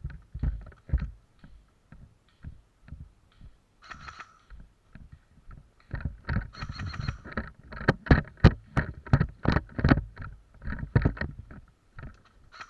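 Irregular thumps and rustling from a player moving with gear, sparse at first, then a dense run of knocks about two a second for around five seconds before easing off.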